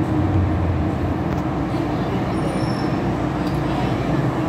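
MTR Island Line train heard from inside the car: a steady running rumble of wheels and motors on the track. The low rumble is strongest in the first second.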